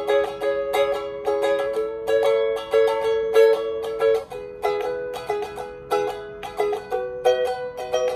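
Beyond UK-17 pocket ukulele, a small red-pine-veneer travel uke tuned up to B E A♭ C#, played solo: a steady run of plucked chords and single notes, two or three attacks a second, each ringing briefly.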